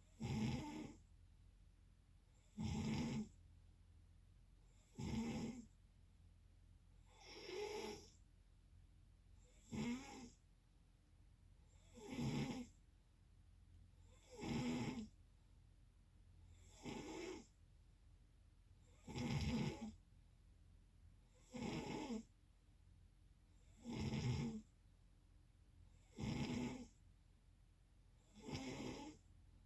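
A sleeper snoring in a steady, regular rhythm, one short snore about every two and a half seconds.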